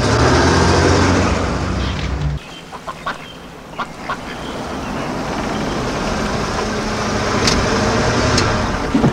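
A car engine running steadily, cut off abruptly about two seconds in. A quieter stretch follows with a few short duck quacks and a slowly rising rush of noise.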